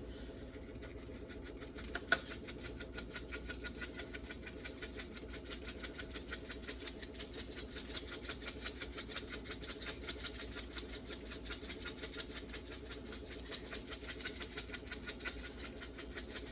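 Dried diced onion shaken out of a spice shaker onto raw chicken: a fast, even rattle of about five shakes a second that starts about two seconds in and grows stronger, over a steady hum.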